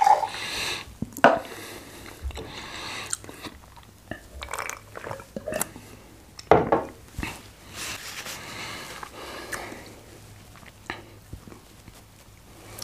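Close-miked chewing and mouth noises: irregular wet bursts and scattered sharp clicks, with the loudest burst about six and a half seconds in.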